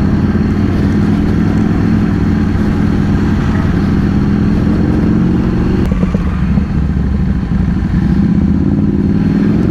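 Motorcycle engine running steadily under way, with a brief dip in the engine note about six seconds in.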